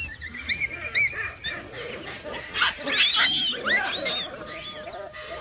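Several baboons screaming and calling in overlapping, high, arching cries, loudest about three seconds in. A steady held music tone comes in near the end.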